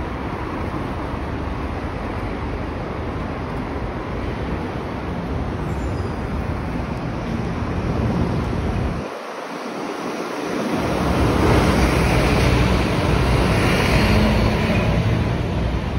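City street traffic noise: a steady wash of cars and buses passing on the road beside the sidewalk. It grows louder a little past the middle as a city bus passes close by.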